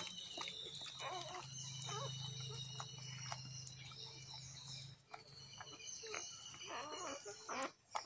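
A Dalmatian mother licking and nosing her newborn puppies, with wet licking and snuffling clicks and the puppies' short high squeaks. A steady low hum lies under it and stops about five seconds in.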